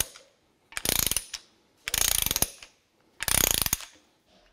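Ratchet head of a torque wrench clicking in three quick bursts, each about half a second of rapid ticks, as it is swung back between pulls while running down connecting-rod cap bolts being tightened to 30 Nm.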